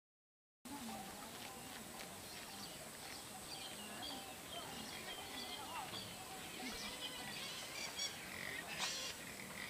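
Silence for about half a second, then faint open-air village ambience with many birds chirping and calling in quick short notes.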